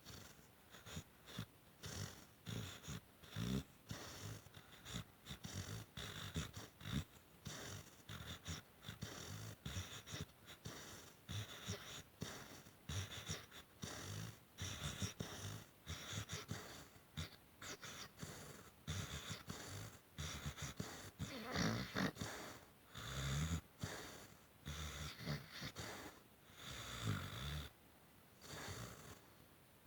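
Pit bull sleeping with her tongue out, snoring in short uneven bursts about one or two a second, an unusual snore even for her, with a few louder bursts in the second half.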